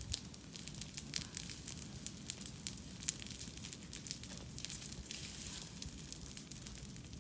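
Bonfire crackling, with irregular sharp pops and snaps.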